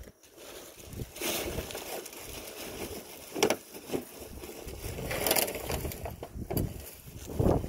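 Wind buffeting the microphone in irregular gusts, with a rumble and several stronger surges, the loudest near the end.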